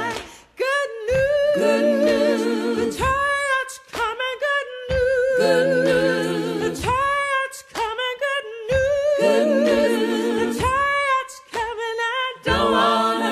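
One voice singing unaccompanied, long held notes with a wide vibrato, in phrases of about four seconds with short breaks between them.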